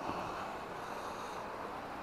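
Steady outdoor background noise at the waterside, with no distinct events.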